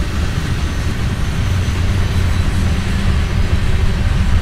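Freight train cars rolling past on the track: a steady, loud low rumble of steel wheels on the rails.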